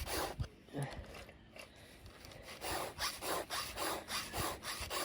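Hand file scraping across a chainsaw chain's cutter teeth in short rasping strokes while the chain is sharpened: a couple of strokes, a pause of about a second and a half, then a steady run of about three strokes a second.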